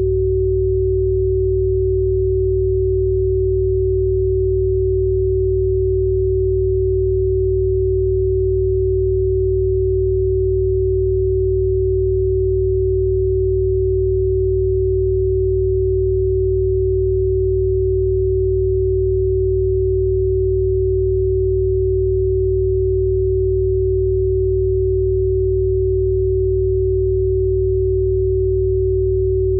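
Steady electronic pure tone, a single held mid-range pitch, as played for frequency healing, with a steady low hum beneath it. It holds unchanged throughout.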